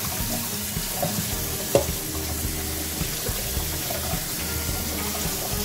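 Cold tap water running steadily onto cooked pasta in a stainless steel colander over a metal sink. A single sharp knock comes a little under two seconds in.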